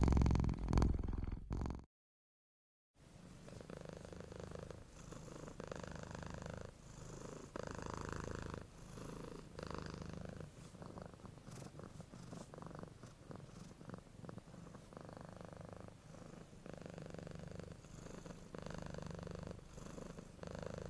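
Domestic cat purring. A louder purr cuts off about two seconds in. After a second of silence a second, softer purr starts and runs on, swelling and fading in a slow, even rhythm.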